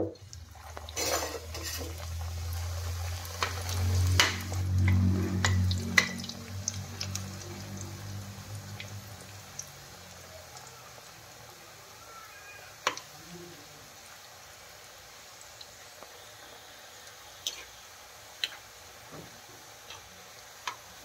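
Dough snacks deep-frying in hot oil in an iron kadai, a steady sizzle with scattered clinks and knocks of a utensil against the pan. A low hum and the loudest knocks come in the first half, after which only the sizzle and occasional clinks remain.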